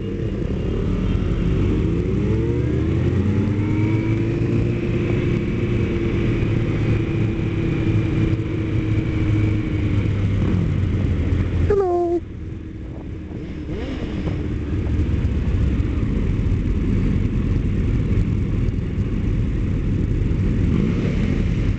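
Sport motorcycle engine heard from on board while riding in a pack of motorcycles. It picks up speed with rising pitch and then holds a steady cruise. About twelve seconds in it revs up sharply, drops off suddenly and quieter, then pulls again.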